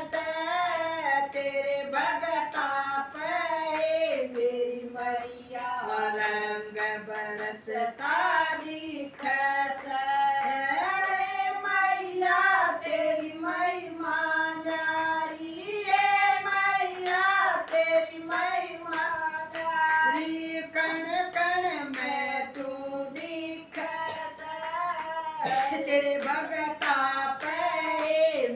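Several women singing a Haryanvi devotional bhajan together, with steady hand claps keeping time.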